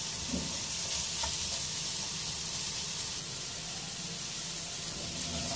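Carrot and green capsicum strips sizzling steadily in hot oil in an aluminium pot, stir-fried with a plastic spatula with a few light scrapes.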